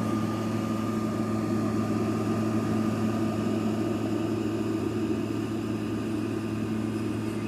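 GE air conditioner running with a steady hum and a faint high whine over the sound of its blowing air.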